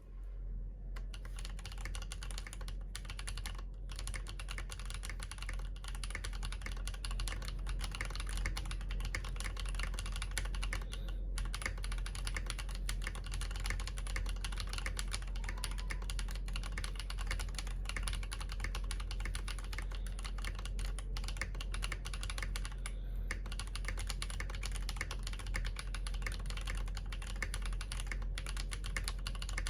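Continuous typing on an Akko MOD001v2 mechanical keyboard with Yok Panda tactile switches on a polycarbonate plate: a dense run of key clacks with a few brief pauses.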